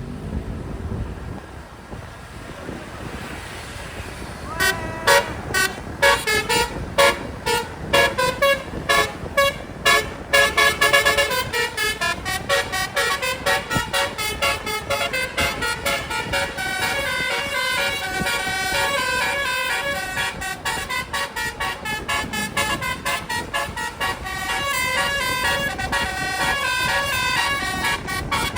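Bus telolet horns, banks of musical air-horn trumpets, playing. After a few seconds of road noise come short separate toots about twice a second, then from about a third of the way in a fast run of overlapping multi-note melodies.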